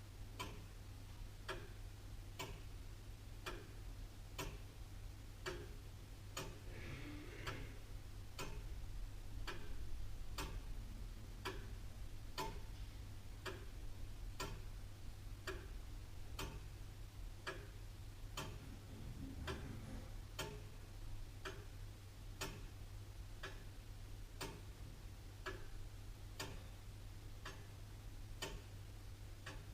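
Antique William Holliwell, Liverpool clock ticking steadily, its escapement giving sharp, evenly spaced ticks.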